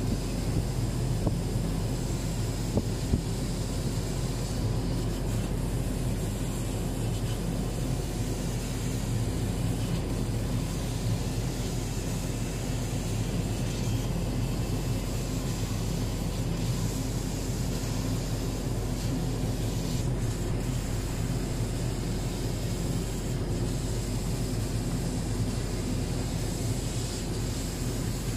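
Double-head laser cutting machine running as it cuts PVC tarpaulin: a steady machine drone with a low hum and a faint high whine, and a few small ticks in the first few seconds.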